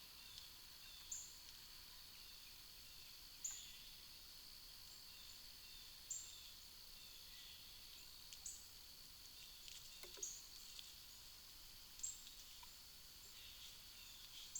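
Faint outdoor ambience picked up by a trail camera's microphone: a steady high-pitched hum with a short, high chirp repeating about every two and a half seconds, seven times, and a few faint clicks.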